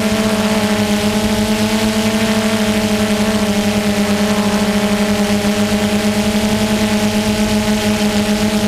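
DJI Phantom 2 quadcopter's propellers and motors humming steadily, picked up close by the camera mounted on the drone, with a fast pulsing in the level and a slight dip in pitch about three and a half seconds in.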